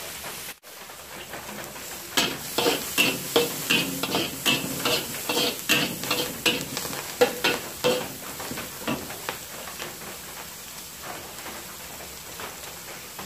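Metal spatula scraping and tapping against a black wok while ginger, dried shrimp and spring onions stir-fry in hot oil, about three strokes a second over a sizzle. After a momentary break just after the start, the strokes run for several seconds, then ease off and leave mostly the steady sizzle near the end.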